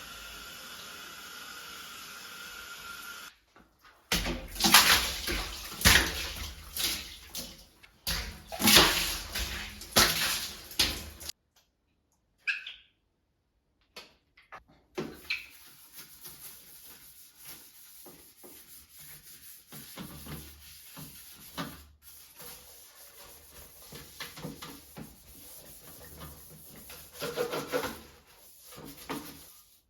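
Water running and splashing in irregular surges, loudest in the first half, with gaps where the sound cuts out and quieter handling noises afterwards.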